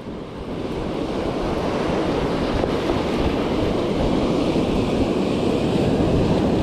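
Surf breaking and washing up the sand, with wind buffeting the microphone; the rush swells over the first second or two and then holds steady.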